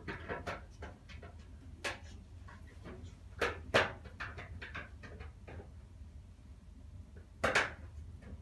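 Scattered clicks and knocks of a screwdriver and small metal parts being handled at the lower front panel of a front-load washer as screws are put in. Two sharper clacks come close together about three and a half seconds in and another near the end, over a steady low hum.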